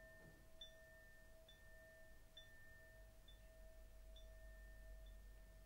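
Very faint background meditation music: two soft sustained tones under a light, high chime-like ping about once a second.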